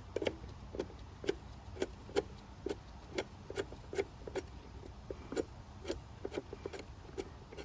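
Short metallic clicks, two to three a second and unevenly spaced, as the 10 mm nut on a car battery's hold-down clamp is undone.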